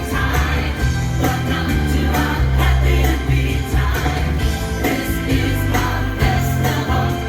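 Song with singing over a heavy bass line, playing loudly and continuously.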